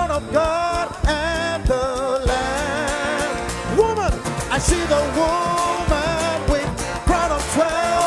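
Live gospel worship song: a male lead singer sings a held, wavering melody over acoustic guitar and a full band with drum hits, with backing vocalists.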